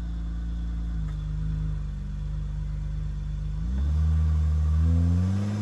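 Honda Ridgeline's 3.5-litre V6 running steadily at idle just after being started, then revved a little and held at a higher speed nearly four seconds in.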